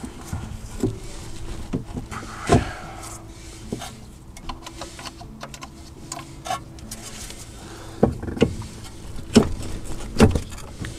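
Clunks and knocks of a car's front suspension being moved by hand: the steering knuckle with its brake disc being worked into line with a newly fitted air strut. Scattered knocks, a strong one about two and a half seconds in and several close together near the end.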